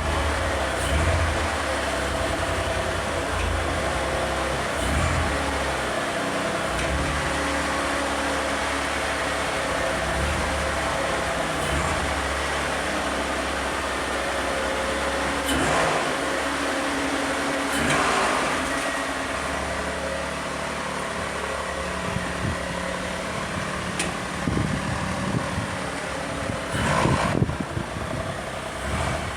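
Mitsubishi 3000GT's freshly rebuilt V6 engine running steadily at idle. A few short louder knocks and clatters sit over it, most of them near the end.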